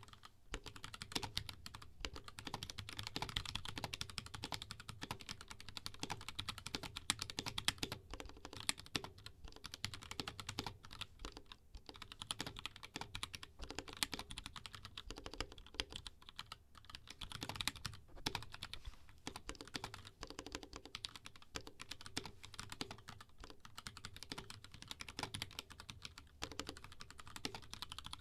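Continuous fast typing on a custom 60% mechanical keyboard: unlubed KS3 Black switches in an aluminium plate on a BM60 PCB and case, with lubed Durock V2 stabilisers and paper-modded HK Gaming keycaps. Keystrokes clatter rapidly and densely, with a few brief pauses.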